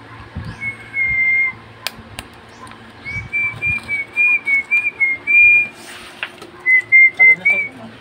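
A person whistling a tune: one held note, then a run of short notes stepping up and down, then four short notes near the end. Two sharp clicks come about two seconds in.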